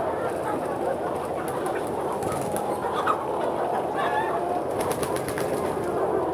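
A large flock of chickens in a poultry house: the steady mass chatter and clucking of many birds, with a few louder individual calls, the clearest about four seconds in.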